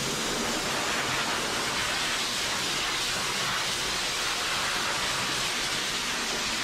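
Small hose-type dog dryer running, blowing air through its nozzle into a wet dog's coat: a steady rushing hiss.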